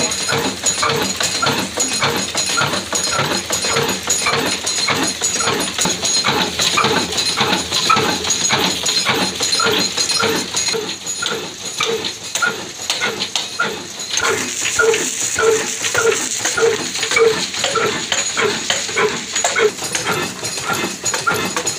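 Old black stationary diesel engine of 22–24 horsepower running steadily, with a slow, even beat of about two and a half a second.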